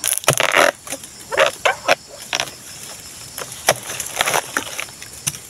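A palm harvesting chisel jabbing and scraping into the fibrous stalk of an oil palm fruit bunch, about half a dozen strokes at irregular spacing, the first the longest.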